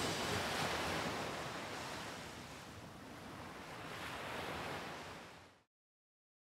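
Ocean waves washing, a steady rushing that dips, swells again about four seconds in, then fades out quickly to silence.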